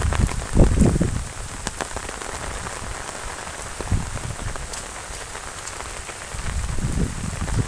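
Heavy monsoon rain falling steadily on surfaces around, with scattered drop ticks. Low rumbles come in the first second and again near the end.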